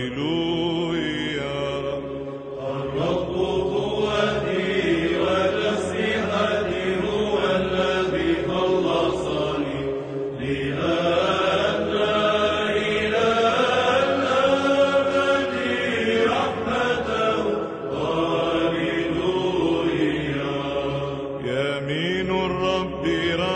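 Orthodox Byzantine chant sung in Arabic, voices holding a slow, drawn-out melody.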